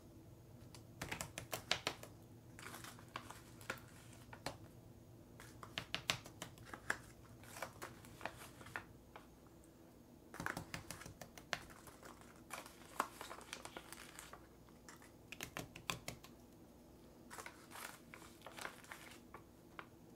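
Small plastic scoops clicking and scraping against plastic trays as dry powder mix is scooped from paper packets, with light paper rustling; faint, irregular clusters of clicks and taps.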